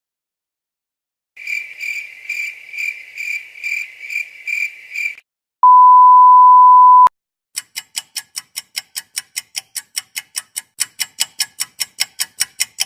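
A string of stock sound effects: a cricket chirping in even pulses, about two and a half a second (the awkward-silence gag), then a steady censor bleep lasting about a second and a half, then a fast run of clicks, about six a second, that carries on to the end.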